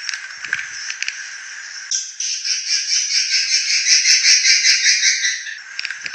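Swiftlet calls from a lure recording meant to draw swiftlets in to roost: rapid chirps and clicks, then about two seconds in a louder, dense buzzing trill of quick pulses lasting about three and a half seconds, then the chirps again. The call is rough and harsh.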